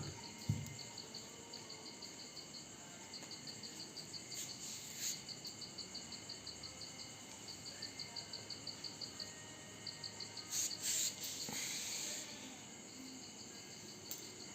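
A cricket chirping: a high-pitched pulsing at about ten pulses a second, in runs with short breaks. A few brief rustling noises come in, the loudest about ten to twelve seconds in.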